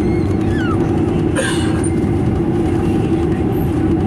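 Cabin noise of a Boeing 737-900ER taxiing: a steady low rumble of the engines and rolling gear, with rattling, and a brief clunk about a second and a half in.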